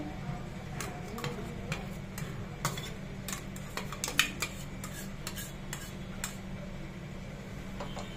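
Spoon stirring semolina cake batter with mango paste, sugar and oil in a bowl, with irregular clinks of the spoon against the bowl. The clinks stop about six seconds in.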